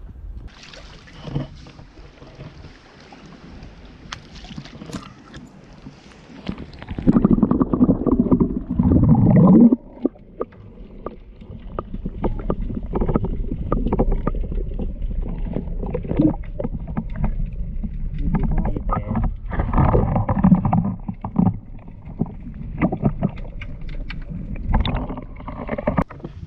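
Wind gusting against the microphone, a rough low rumble that swells in strong gusts about a third of the way in and again past the middle.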